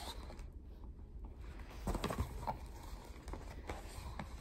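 Faint rustling and a few light taps as the pages of a paperback picture book are handled and turned.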